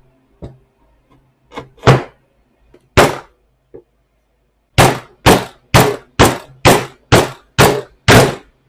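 Hard blows, apparently while the e-bike hub motor is knocked back together: a few separate strikes, then a run of eight evenly spaced ones about two a second.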